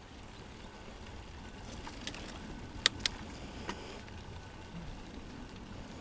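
Mountain bike rolling down a dirt trail: a steady low rumble of tyres and wind, with a few sharp clacks from the bike over bumps, the loudest two in quick succession about halfway through.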